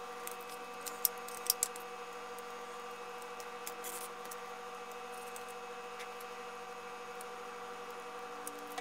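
Quiet room tone with a faint steady hum, and a few light clicks and crinkles from hands handling small pieces of dry film solder mask and sticky tape, bunched together about a second in.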